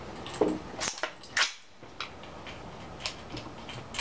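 A few sharp gunshot reports on a shooting range, the loudest about a second and a half in, with fainter clicks between them.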